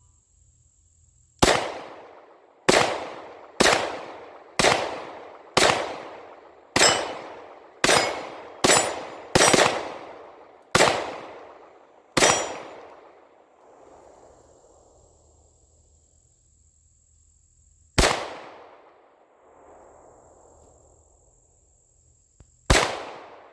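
MAC 9 DS compensated 9mm pistol firing single shots, about a dozen roughly a second apart, then two more after longer pauses, each shot echoing away.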